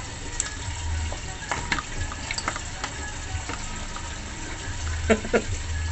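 Live crayfish being handled and pulled apart by gloved hands over a wooden cutting board: scattered clicks and cracks of shell, with two louder knocks about five seconds in, over a steady hiss.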